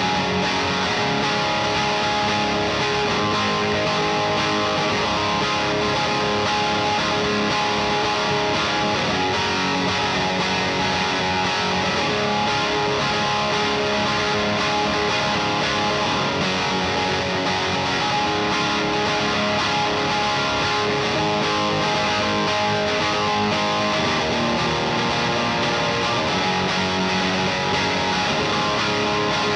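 Gibson Les Paul Tribute with P-90 pickups played without a pause in an overdriven tone through an Acorn Amplifiers AFKK, a Klon-style overdrive pedal, with steady loudness.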